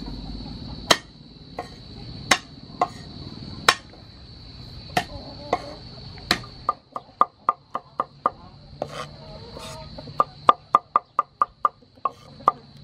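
Kitchen knife chopping food on a wooden cutting board: single sharp strikes about a second apart, then fast chopping at about four to five strokes a second in the second half.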